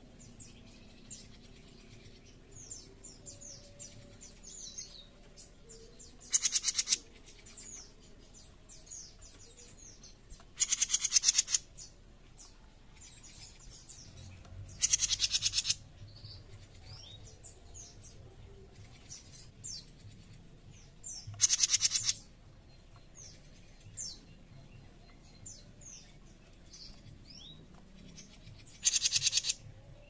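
Caged songbird known to Indonesian bird-keepers as a 'jenggot mini', giving five harsh, rasping rattle calls (besetan), each about a second long and several seconds apart. Faint short high chirps come in between.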